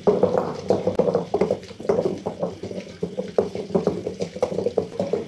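Wooden pestle mashing a thick tomato chutney in a bowl, working in freshly added garlic: repeated wet, squishing strokes about three a second.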